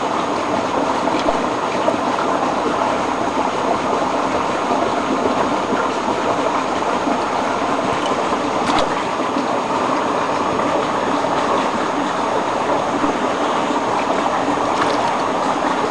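Steady rushing of creek water, a constant loud wash of noise with no rhythm.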